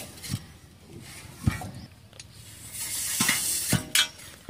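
Dull thuds of an iron pipe being jabbed down into a hand-dug bore hole in dry earth, four strikes at uneven intervals, with a gritty scraping hiss of soil between them about three seconds in.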